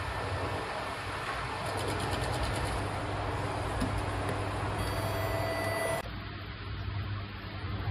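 Steady traffic noise of a city street, a continuous even rumble and hiss. About six seconds in it drops abruptly to a quieter background.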